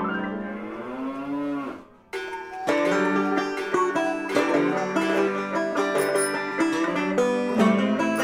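A cow moos once, one long call that rises and then falls in pitch, ending about two seconds in. Then plucked-string music starts.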